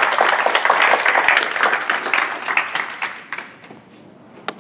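Audience applauding, dying away about three and a half seconds in. A single sharp click near the end.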